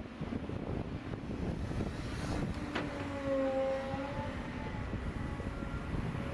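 Volvo EC210BL excavator's diesel engine running under load as it swings back and digs into a pile of clay, with wind on the microphone. A sharp knock about two and a half seconds in, then a high hydraulic whine for about a second and a half as the bucket digs into the pile.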